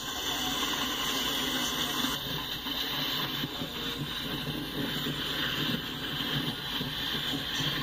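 Container well cars of a freight stack train rolling past on the rails: a steady noise of steel wheels on track.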